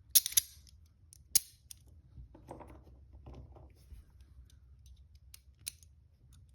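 Smith & Wesson handcuffs being worked by hand, their steel ratchets clicking sharply: two loud clicks right at the start, another about a second and a half in, then lighter ticks and one more click near the end. The used cuffs are being cycled to break them in after cleaning.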